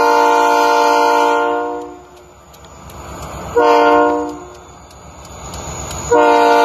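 Diesel locomotive air horn sounding a chord of several notes: a long blast that trails off about two seconds in, a short blast near four seconds, then another long blast starting near the end. This is the long-long-short-long warning sounded for a grade crossing.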